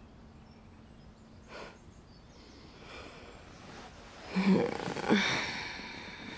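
Two short breathy huffs from a woman, about four and five seconds in, after a quiet stretch.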